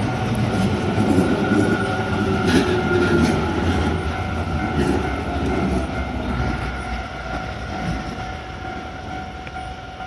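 Tobu 50000-series electric commuter train running through the level crossing, its rumble fading as the last cars pass. Under it, the crossing's warning bell rings steadily.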